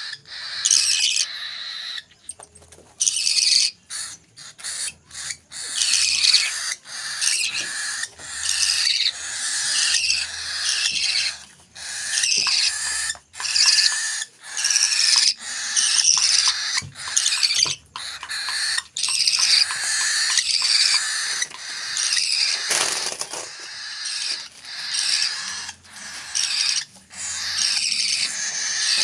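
Hand-fed parrot chicks giving high-pitched food-begging calls in bursts of a second or two with short breaks between.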